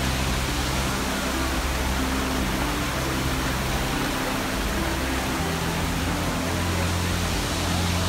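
Waterfall rushing steadily, with background music of held low notes under it.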